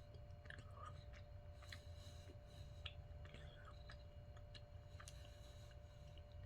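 Faint chewing of a caramel, nougat and pecan candy bar: soft, scattered mouth clicks over a low steady hum.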